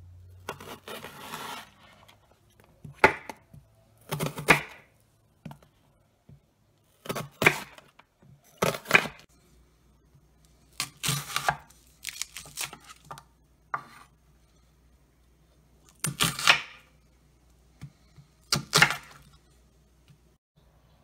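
Chef's knife slicing through an onion on a wooden cutting board: about ten separate crisp cuts, each ending on the board, irregularly spaced a second or two apart.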